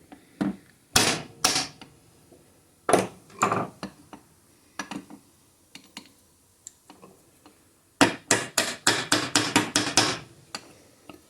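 Hammer blows on a tube used as a drift, knocking a part of an Indiel AVI 128 alternator downward to free its bearing. Two pairs of hard strikes, then a few lighter taps, and near the end a quick run of about ten blows.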